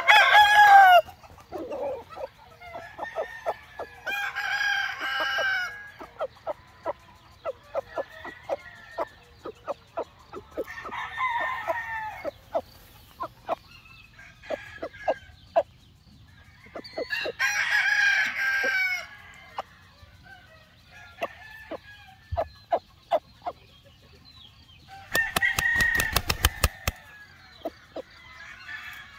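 Game roosters crowing about five times, each crow lasting one to two seconds, the first one the loudest, with many short clucks between the crows.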